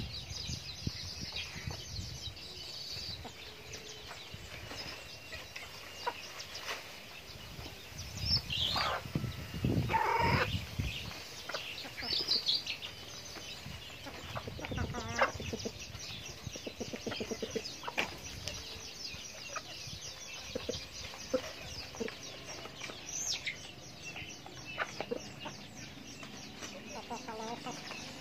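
Chickens clucking as they feed, with short calls scattered throughout and the loudest run of calls about nine to eleven seconds in.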